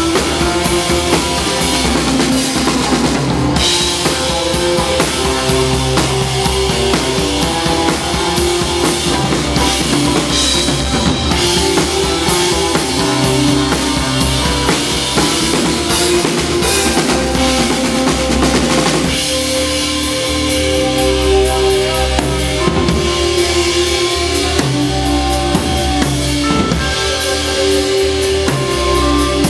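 A live band playing, a drum kit with bass drum and snare driving the beat under guitar and held notes. About two-thirds of the way through, the drumming eases off while the held notes carry on.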